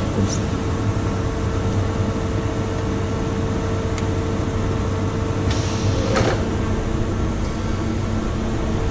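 Hartford PBM135A CNC horizontal boring mill running, a steady machine hum holding a few fixed tones. A brief hiss comes about five and a half seconds in.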